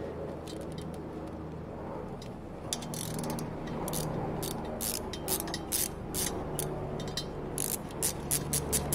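Hand ratchet clicking in quick runs, starting about three seconds in, as it unscrews a cylinder-head stud from a Honda CB250 engine.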